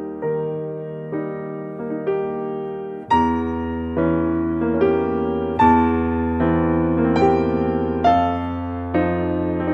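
Calm background piano music: a slow melody of struck notes, each fading away, with a deeper bass part coming in about three seconds in.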